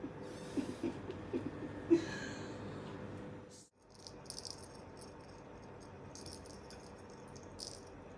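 Light irregular rattling and clicking from a pet cat's collar bell and movements, cut off suddenly after about three and a half seconds. Then fainter scattered scratchy ticks as the cat claws and bites a fabric wand toy on a bedsheet.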